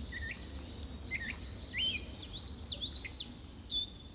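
A loud, high insect trill that breaks briefly and then stops just under a second in, followed by a bird's quick, sweeping chirps and calls.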